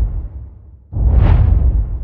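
Dramatic booming hit sound effects with a deep bass boom and a hiss that swells and fades: the first dies away early on, and an identical second hit lands about a second in.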